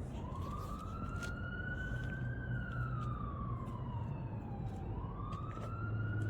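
Emergency-vehicle siren in a slow wail, rising, falling over a couple of seconds, then rising again, over a steady low hum.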